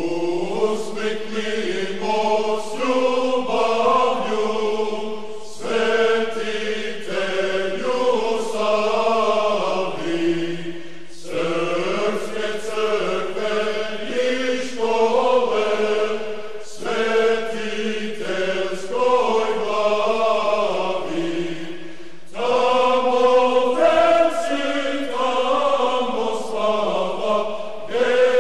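Male choir singing an Orthodox chant unaccompanied, in sustained phrases of about five seconds with brief pauses for breath between them.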